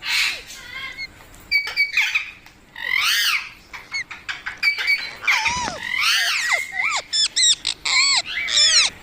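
A parrot squawking: a string of shrill calls that arch up and down in pitch, turning into a quick run of short calls near the end.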